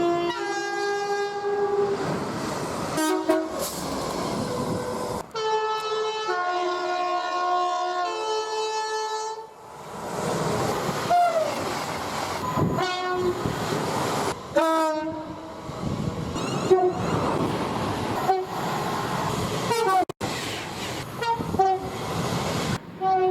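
British train two-tone horns from several passing trains, spliced one after another: long blasts switching between a high and a low note in the first half, then a run of short toots, some dropping in pitch as the train passes. Under the horns is the rushing noise of trains at speed.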